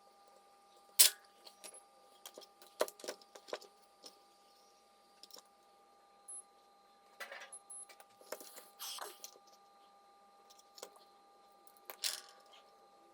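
Scattered sharp clicks, knocks and short rattles of tools and small parts being handled on a repair bench, the loudest click about a second in, over a faint steady electrical whine.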